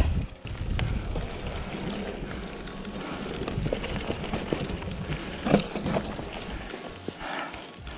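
Full-suspension mountain bike rolling over a rocky trail: tyres grinding on rock and grit, the bike rattling with small clicks and a few sharper knocks over bumps, the loudest about five and a half seconds in, with wind rumbling on the camera's microphone.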